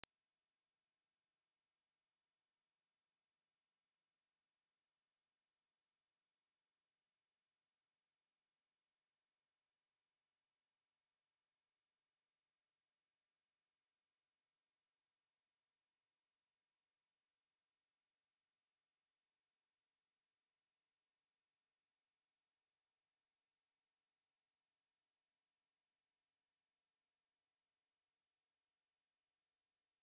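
Pure 6705 Hz sine-wave test tone: a single steady high-pitched tone at constant level, with no overtones and no breaks.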